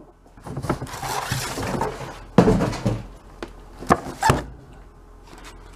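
A cardboard shipping box being handled and a plastic-wrapped case slid out of it onto a wooden workbench: rustling and scraping of cardboard and plastic film, a heavy thump about two and a half seconds in, then two sharp knocks.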